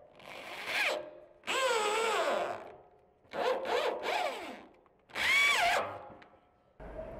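Power drill driving screws through a swivel caster's steel mounting plate into wood: four bursts of motor whine, about a second each, the pitch sagging as each screw bites.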